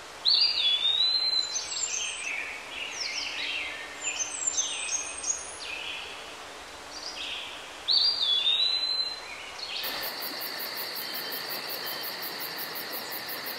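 A songbird singing in woodland, the same phrase twice about eight seconds apart, with other song notes between. About ten seconds in this gives way to a steady, high, insect-like chirring that pulses about three to four times a second.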